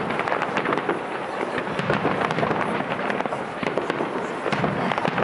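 Fireworks display crackling: a dense, continuous mass of rapid small pops and crackles, with no single big boom standing out.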